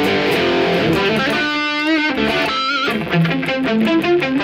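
PRS electric guitar played through an amplifier: a lead line of sustained notes, one of them wavering with vibrato about two-thirds of the way through.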